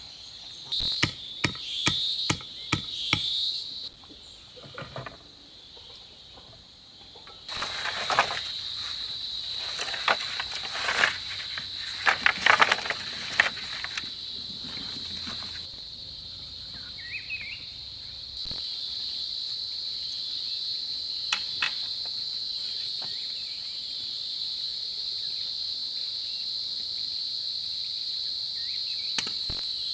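Insects (crickets or cicadas) keep up a steady high-pitched chorus, with bursts of sharp knocks and taps in the first half.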